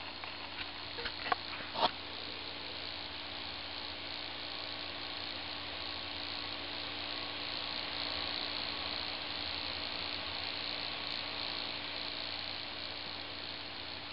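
Late 2008 unibody MacBook Pro's cooling fan whirring steadily: an even hiss with a faint steady hum in it, swelling slightly in the middle. Two or three sharp clicks between one and two seconds in are the loudest sounds.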